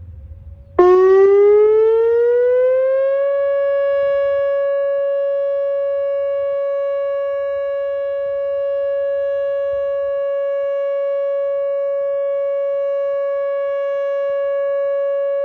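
Whelen outdoor tornado warning siren sounding its steady alert tone on a monthly test. It comes in suddenly about a second in after a fainter rising tone, climbs in pitch for a couple of seconds, then holds one loud steady note.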